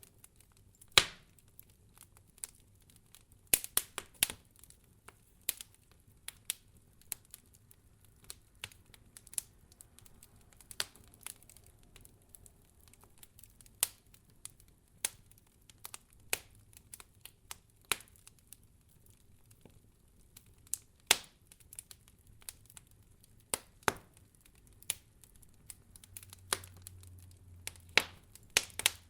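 Wood fire crackling: irregular sharp pops and snaps, a few louder ones among many small ticks, over a faint low rumble.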